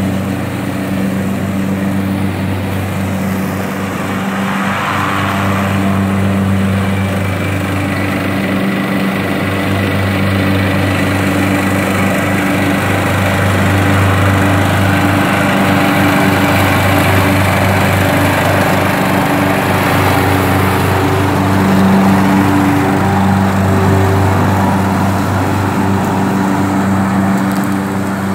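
Riding lawn mower's engine running steadily as it cuts tall grass, a constant low engine hum with its blades engaged.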